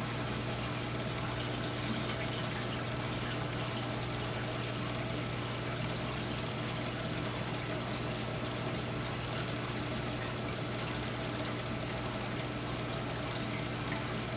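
Saltwater aquarium's circulating water trickling and pouring, with a steady low hum underneath.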